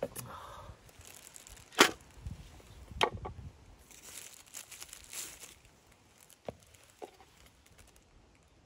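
Sharp knocks of a wooden cutting board and folding knife being set down, the loudest about two seconds in and another a second later, then a stretch of crinkling rustle and a few light clicks as a knife starts cutting a slice of white bread on the board.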